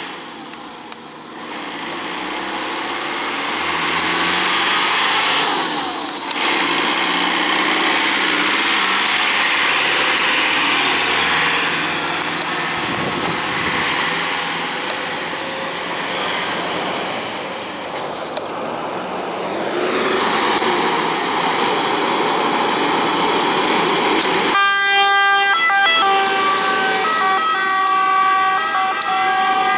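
Italian fire engines pulling out and driving off, their engines running loudly. About 25 seconds in, the Volvo FL 280 pump truck's two-tone siren starts, with steady tones that step back and forth between two pitches.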